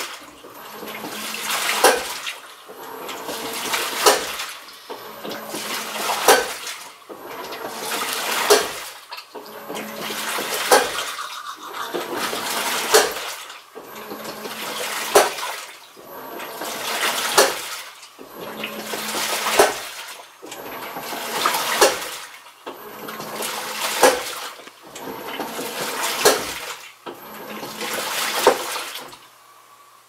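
Hitachi BeatWash top-loading washing machine agitating, water and laundry churning in surges about every two seconds, each surge ending in a sharp knock. This is the abnormal noise the owner puts down to a failed clutch.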